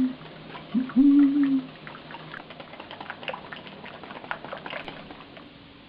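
A voice hums a held note about a second in, then a wire whisk beats crepe batter in a bowl: a fast, uneven run of light clicks and taps.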